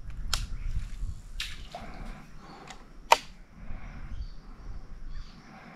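Quiet handling noises from fishing in a small boat on still water: four sharp clicks or taps, the loudest about three seconds in, over faint water sounds and a low rumble.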